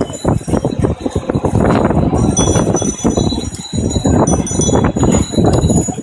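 Busy city street traffic: a dense, loud din with bells ringing now and then.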